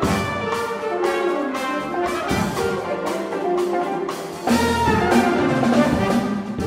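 Jazz big band playing, with the brass section carrying short rhythmic figures. About four and a half seconds in, the band gets louder and fuller as low notes come in underneath.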